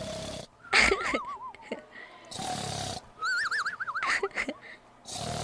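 Snoring in a repeating cycle: a short rasping in-breath, then a warbling whistle on the out-breath, about two and a half times.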